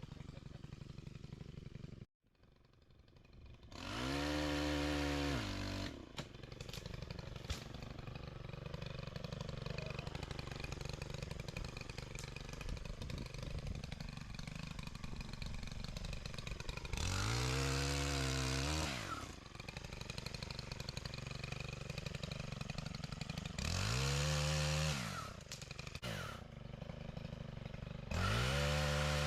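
Two-stroke chainsaw idling, revved up four times: briefly about 4 s in, again in the middle, and again a few seconds later, then held at high revs near the end. There is a short dropout to silence about 2 s in.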